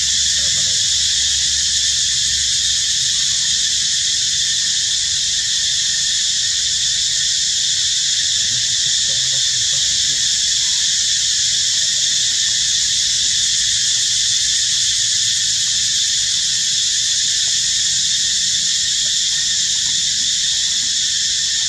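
Dense chorus of insects in the trees: a loud, steady, high drone that keeps on without a break or change.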